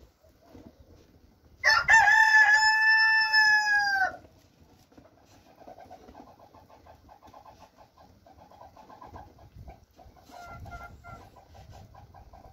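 A rooster crows once, a loud call of about two and a half seconds that drops in pitch at the end. Fainter, quick clucking calls follow.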